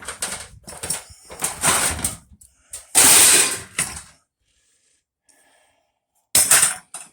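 Clattering and scraping of junk being moved and rummaged through inside an old camper trailer being gutted: a run of irregular noisy bursts, the loudest about three seconds in, then one more short clatter near the end.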